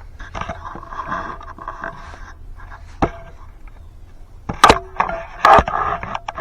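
Kitchen utensils and bowl being handled while portioning mashed potatoes: scraping and rustling, with sharp knocks about three, four and a half and five and a half seconds in.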